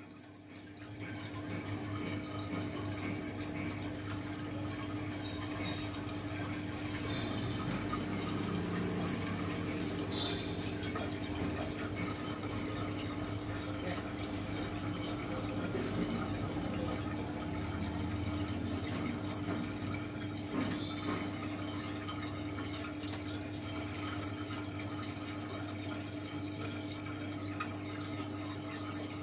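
Marine aquarium water circulating and trickling, stirred by the powerheads, over a steady low hum from the pumps.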